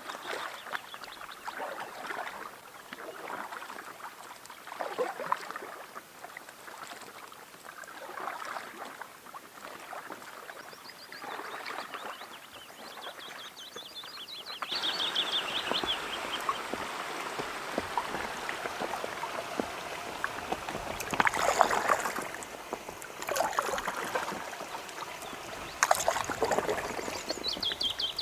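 Kayak paddling on open loch water: water sloshing and splashing with the paddle strokes, a few louder splashes near the end. A small bird sings a rapid high trill twice. The background changes abruptly about halfway through.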